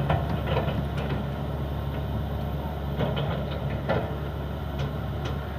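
Excavator's diesel engine running steadily, with a few short knocks or clanks spread through it.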